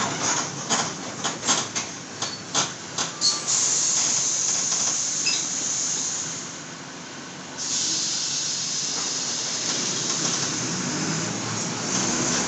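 Mercedes-Benz OF-1722 diesel bus heard from on board. A run of sharp rattles and knocks is followed by a long air hiss, and after a brief lull another sudden hiss of air. The engine then pulls hard under acceleration.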